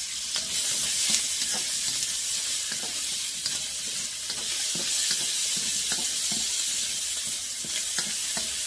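Sliced sausage sizzling as it fries in a wok, stirred with a utensil that scrapes and knocks against the pan many times.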